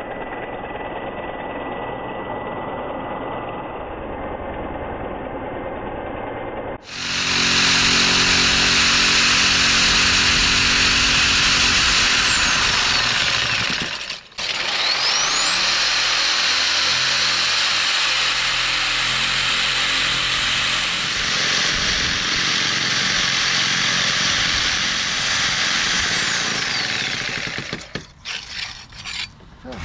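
Handheld electric power tool breaking out brickwork. After a muffled steady rattle it runs loud in two long spells, the second twice as long as the first, its high motor whine spinning up at the start of each and winding down when released.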